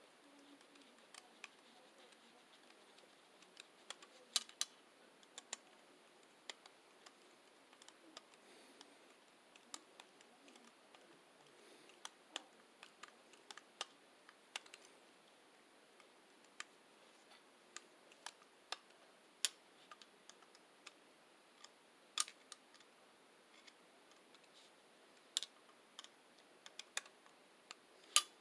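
Faint, irregular light clicks and taps of hands working small electrical parts: a lamp cord's wires and its cable connector being handled and fitted at an electrical box.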